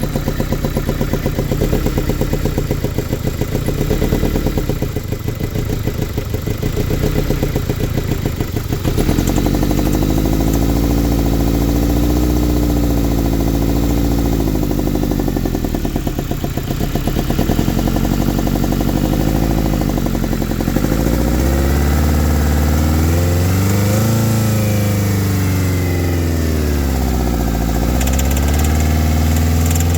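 Toyota Corolla 1.8-litre four-cylinder engine running unevenly, its speed rising and falling again and again from about nine seconds in. The engine is still drawing a vacuum leak: a new hose in place of a cracked one has cured only part of it, and another leaking hose remains.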